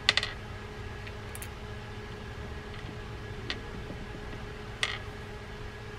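Small clicks and ticks from handling a baitcasting reel's small parts and a screwdriver: a quick cluster of sharp clicks right at the start, then a few single ticks spread apart, over a faint steady hum.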